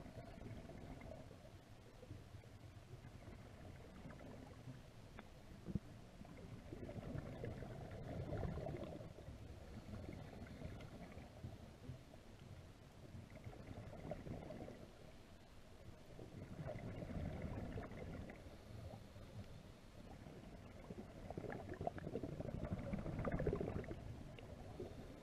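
Scuba divers breathing through regulators, heard underwater: exhaled bubbles gurgle in swells every few seconds over a low rumble.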